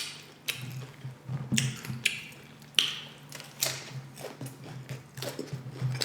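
Close-miked chewing and crunching of tortilla-chip nachos: irregular crisp crunches, a few each second, over a low steady hum.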